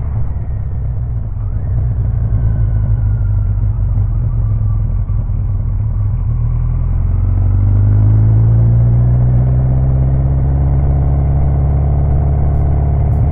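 Kawasaki 1000 GTR's four-cylinder engine running with a steady low rumble, then from about seven seconds in the revs climb slowly and the engine note rises and gets a little louder.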